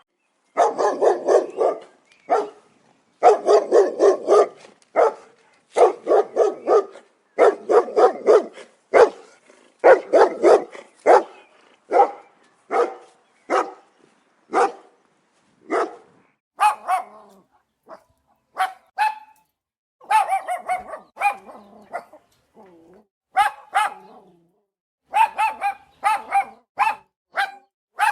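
Dog barking over and over. For about the first ten seconds the barks come in rapid, deep volleys; after that they are single, higher-pitched barks about a second apart.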